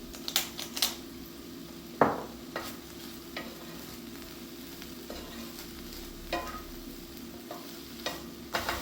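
Lean beef mince sizzling in a frying pan while it is stirred, with sharp taps and scrapes of the utensil against the pan, the loudest about two seconds in.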